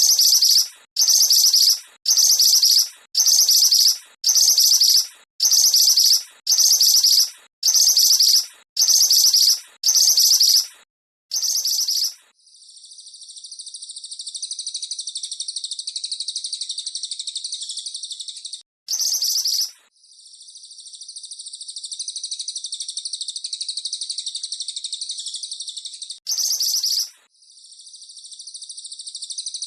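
Cililin and mantenan songbirds calling, a recording used as masteran to teach caged birds: a loud, high, short call repeated about once a second for the first twelve seconds, then long, steady high trills, broken twice by a single loud call.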